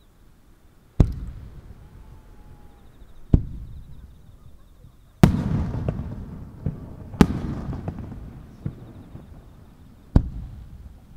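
Aerial firework shells bursting: five loud, sharp booms about two to three seconds apart, each trailing off in a long rolling echo, with a couple of smaller pops between them.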